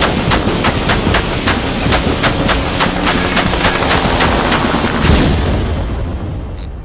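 Rapid, irregular gunfire, about four shots a second, over a steady low rumble, with a heavier blast about five seconds in before it all fades out.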